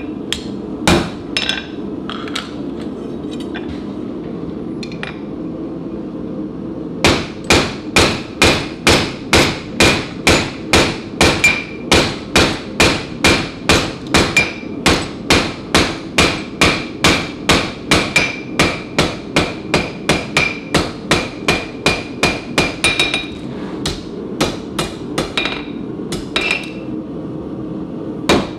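Hand hammer striking red-hot stainless steel on an anvil. A few scattered blows come first, then about seven seconds in a steady run of blows, roughly two and a half a second, each with a short metallic ring. It thins to a few spaced blows near the end, over a steady low roar.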